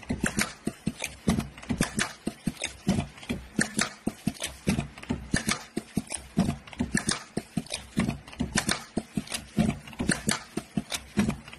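Automatic hang-tag feeding machine cycling: a steady run of sharp mechanical clacks and clicks, one cluster a little under every second.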